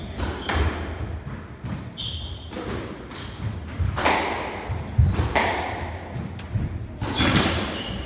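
A squash rally: the ball cracking off the rackets and court walls every second or two, with court shoes squeaking on the wooden floor and footsteps thudding in between.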